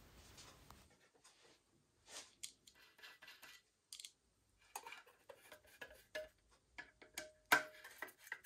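Faint clicks and scrapes of small screws being handled and a screwdriver driving them in as a stainless-steel cover is screwed onto an aluminium motorcycle engine crankcase. One sharper metallic click with a brief ring comes about seven and a half seconds in.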